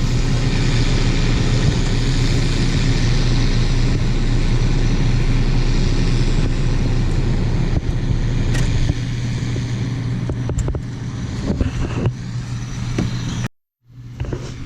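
An engine running steadily with a strong low hum under a dense rushing noise. The rush eases a little about eight seconds in, a few sharp clicks come after that, and the sound cuts off suddenly near the end.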